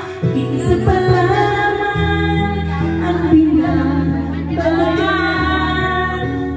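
A woman singing karaoke into a microphone over a backing track with long held bass notes, her voice wavering with vibrato on sustained notes.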